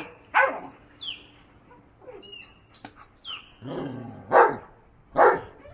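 Dogs barking in play, a Vizsla puppy and a Briard: about five short, sharp barks and yips spread through a few seconds.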